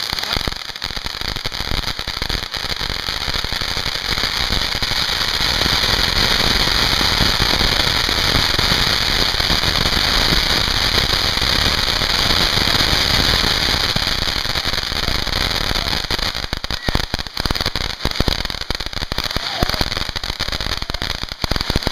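Several TNT Star Voyager ground fountain fireworks burning together: a steady hiss with dense crackling. It grows fuller a few seconds in and breaks into more scattered pops near the end.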